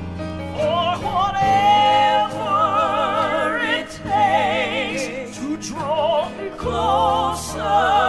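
Gospel music recording: sung held notes with heavy vibrato over instrumental accompaniment with steady low bass notes.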